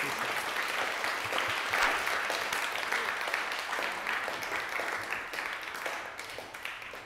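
Audience applauding, many hands clapping, slowly dying down and fading out near the end.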